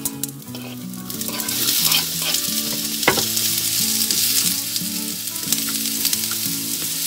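Chopped onion tipped from a wooden cutting board into hot oil in a frying pan, sizzling that swells about a second in and keeps going. A single sharp knock comes about three seconds in.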